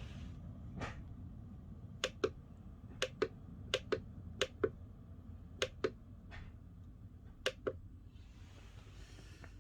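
Buttons on a sunrise alarm clock being pressed and released: six sharp double clicks, each pair about a fifth of a second apart, with two softer single clicks among them.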